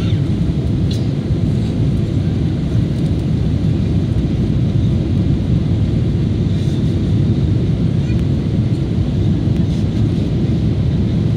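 Steady low rumble of a Boeing 777-300ER's engines and the air rushing past the airframe, heard inside the passenger cabin on final approach with the flaps down.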